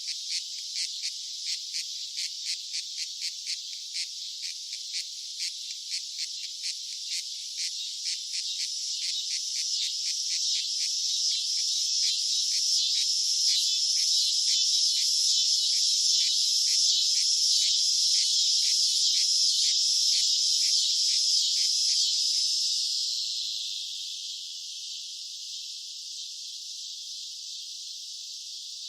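Cicadas calling: rapid, high-pitched pulsing chirps over a steady buzz that swells louder toward the middle. About three-quarters of the way through the pulsing stops and the buzz falls to a quieter, steady drone.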